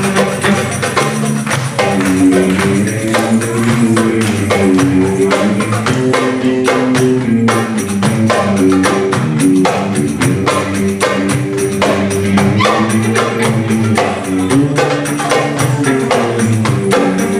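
Live band playing belly-dance music: a violin melody over a fast, steady hand-percussion beat.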